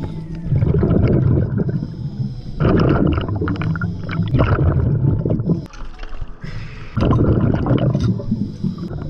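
Exhaled air bubbling out of a scuba regulator, recorded underwater. It comes in long gurgling surges of two to three seconds with short pauses between breaths.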